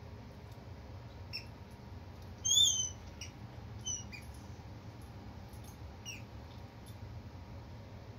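Kitten giving about half a dozen short, high-pitched squeaks as a puppy mouths and chews on it. The loudest is a rising-then-falling squeak about two and a half seconds in; the others are brief and fainter, the last one falling in pitch about six seconds in.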